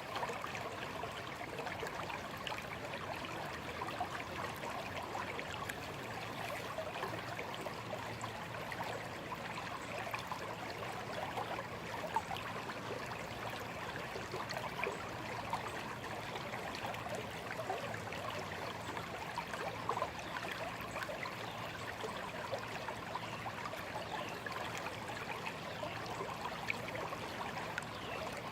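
Small, shallow stream flowing and babbling steadily, a continuous rush with fine trickling detail.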